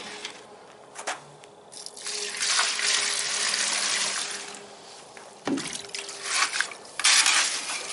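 Water poured from a plastic tub into a bucket of dry Quikrete concrete mix, splashing for a couple of seconds starting about two seconds in. Near the end the mix is stirred with a wooden-handled tool, scraping in the bucket.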